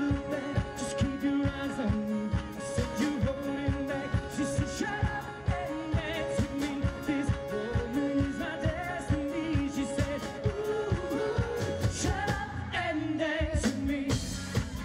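Live band playing an upbeat pop-rock song: vocals over a steady drumbeat, acoustic and electric guitars and keyboard.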